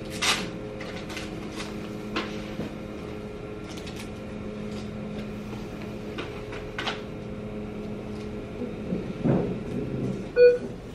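A steady low machine hum with scattered small clicks and handling noises; the hum stops near the end, followed by a short, loud electronic beep.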